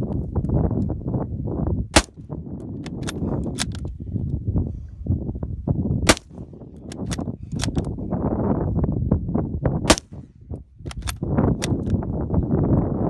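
Yugoslav-made Mauser 98-pattern bolt-action rifle in 7.92×57 mm fired three times, about four seconds apart. After each shot come the short metallic clicks and clacks of the bolt being worked to chamber the next round.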